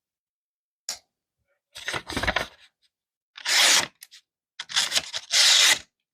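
Pocketknife's 440A stainless steel blade slicing through a sheet of paper in about four separate rasping cuts, after a light click about a second in.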